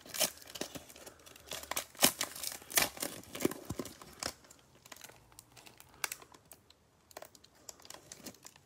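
A foil trading card pack being torn open and crinkled by gloved hands: a run of sharp crackles and tearing, thick in the first half and thinning to scattered crinkles later.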